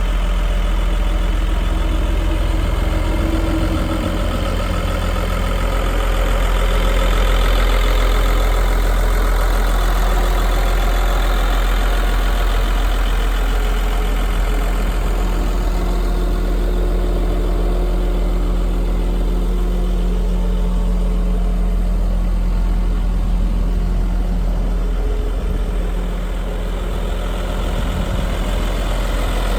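Caterpillar D5N bulldozer's diesel engine idling steadily, a deep, even hum.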